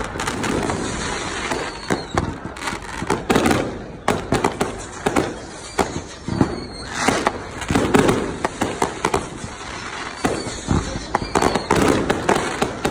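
Many fireworks going off in quick succession: a dense, continuous run of sharp bangs and crackles from aerial bursts.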